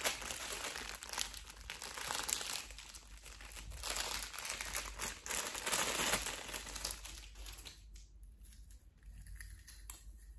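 Clear plastic packaging bag crinkling and rustling as a necklace is unwrapped from it by hand. The crinkling stops about eight seconds in, leaving only a few faint clicks.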